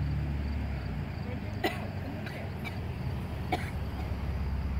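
Wind buffeting the microphone as a steady low rumble, with a few short, sharp clicks in the middle.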